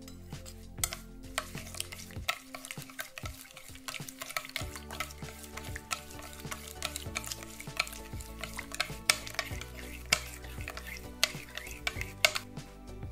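Metal spoon stirring a thin liquid marinade with chopped onion in a glass bowl: wet swishing with repeated clinks of the spoon against the glass.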